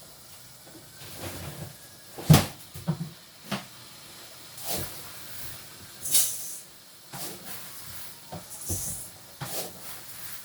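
Kitchen handling sounds: scattered knocks and clatter, the loudest about two seconds in, mixed with several short hissing bursts.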